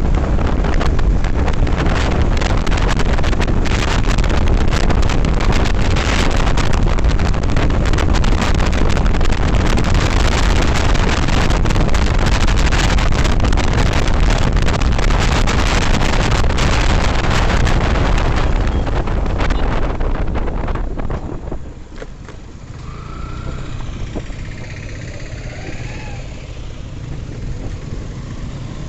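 Riding a Yamaha FZS V3 motorcycle at speed: loud wind buffeting on the microphone over the engine and road noise. The rush dies away about 21 seconds in as the bike slows, leaving quieter traffic with a few short pitched sounds.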